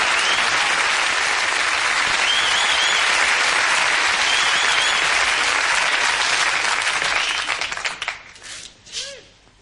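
Studio audience applauding, with a couple of short warbling whistles, fading about eight seconds in to a few scattered claps.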